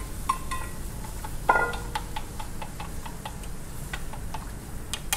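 Wooden chopsticks stirring diced scallops in boiling water, tapping against the hammered aluminium pot in a string of small ringing clicks, with one louder knock about a second and a half in, over a low steady rush.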